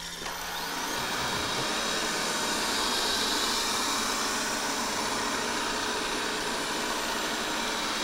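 Xiaomi Mi Robot Vacuum Mop Pro robot vacuum starting up on standard suction: its fan and brushes come up to speed over about the first second, then run steadily with a faint high whine that slowly drifts in pitch. This is its first move after starting, turning in place to scan the room.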